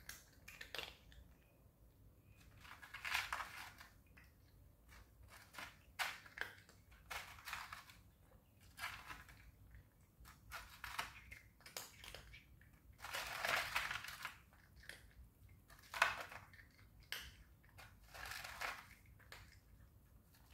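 A cat eating, crunching and chewing its food in irregular bursts of faint crackling crunches and clicks, with the loudest bursts about two-thirds of the way through.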